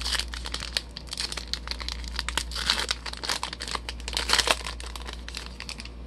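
Foil wrapper of a trading-card pack crinkling and tearing as it is pulled open by hand, the crackling heaviest in the middle and thinning near the end.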